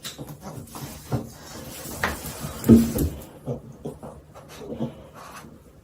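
A dog's noises among scattered knocks and rustling, the loudest being a short, low sound nearly three seconds in.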